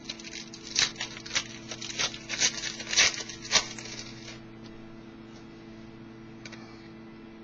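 Foil wrapper of a trading card pack being torn open and crinkled: a run of sharp crackling rips over about four seconds, then only a low electrical hum.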